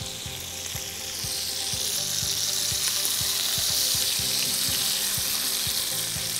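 Chicken pieces frying in hot oil: a steady sizzle with crackling pops, growing louder about a second in.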